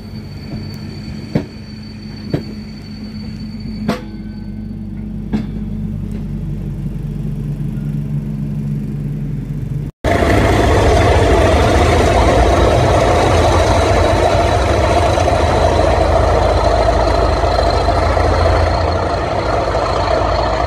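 Network Rail test coaches rolling past, with a few sharp clicks of wheels over rail joints and a steady drone that slowly grows louder. After a sudden cut about halfway, the English Electric V12 diesel engine of Class 37 locomotive 37254 running loudly and steadily as the locomotive approaches.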